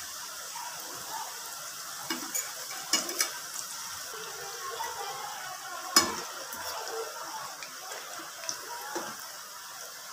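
Samosas deep-frying in hot oil in a metal frying pan, a steady sizzle. A metal utensil clinks against the pan a few times as they are moved about, with the loudest knock about six seconds in.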